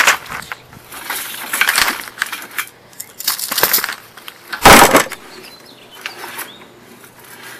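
Sewer inspection camera's push cable being pulled back by hand, with irregular scraping and rattling clicks and one loud clatter just under five seconds in.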